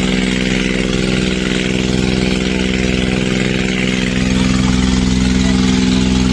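Bangka outrigger boat's engine running steadily at an even pitch, over a steady hiss of splashing water.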